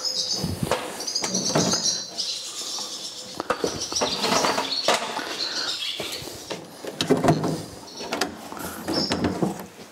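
Small birds chirping and singing, with intermittent knocks and clunks of parts being handled.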